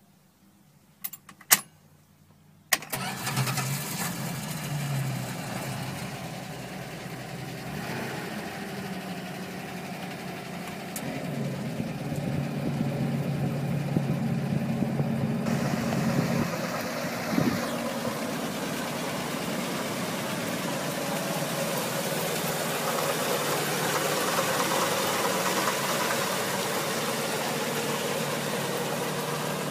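1975 Plymouth Duster engine started: a few clicks, then the engine catches about three seconds in and settles into a steady idle. A single thump about 17 seconds in.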